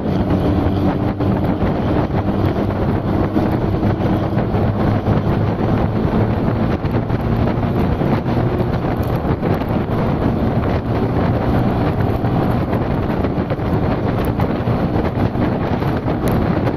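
A motor running steadily under heavy wind noise on the microphone.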